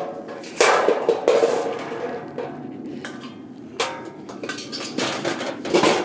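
Metal trash can clanking as trash is thrown in. One loud clank comes about half a second in and rings on, and a few lighter knocks and rattles follow near the end.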